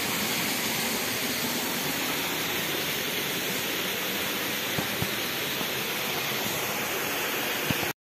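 Small creek waterfall at low flow, water pouring steadily with an even hiss, and a few faint clicks about five seconds in and again near the end.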